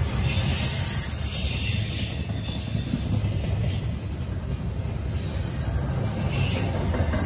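Double-stack intermodal well cars rolling past on the rails: a steady low rumble of wheels and trucks, with short high squeals from the wheels every second or two.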